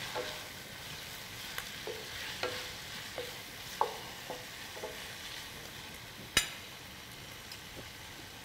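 Wooden spatula stirring fish pieces, onion, ginger and garlic frying in oil in a nonstick pot: a steady light sizzle under scattered scrapes and taps of the spatula. One sharp knock comes about six seconds in.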